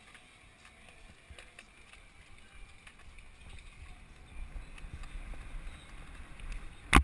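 Wind noise on a helmet camera and bicycle tyres rolling down a BMX track, the low rumble growing louder from about halfway as the bike picks up speed. Light clicks throughout and one sharp knock at the very end.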